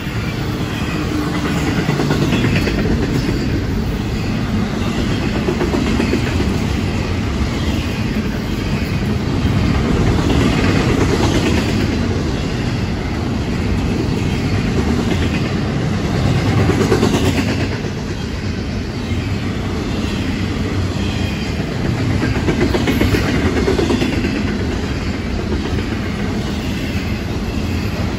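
Double-stack intermodal freight cars rolling past: a steady rumble of steel wheels on rail, with repeated wheel clicks.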